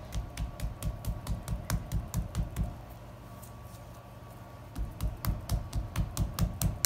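Hand patting a lump of salt dough flat on a stone countertop: quick soft thumps about five a second, in two runs with a pause of about two seconds in the middle.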